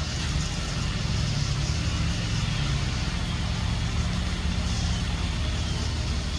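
A steady low engine rumble, like a motor vehicle idling.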